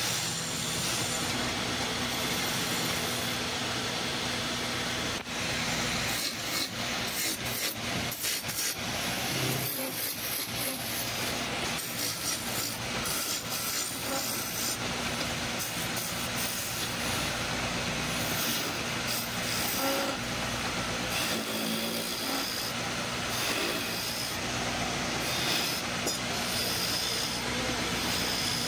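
Wood lathe running steadily, its motor humming, while a hand turning tool scrapes and cuts the spinning wood in an uneven, rasping way.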